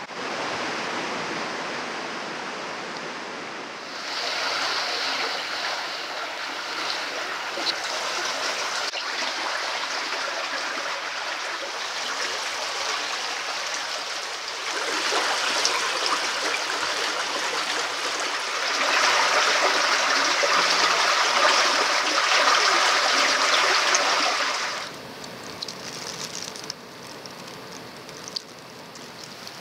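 Water running through narrow stone-lined town canals, a steady rushing babble. It jumps louder or softer several times, loudest in the stretch after the middle, and falls quieter near the end with a few small ticks.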